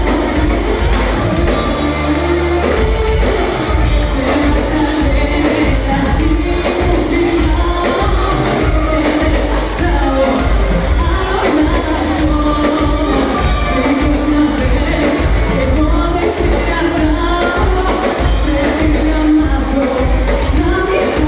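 A live band with drums and keyboards plays with a singer, the drums keeping a steady beat. It is heard from the audience in a large, reverberant hall.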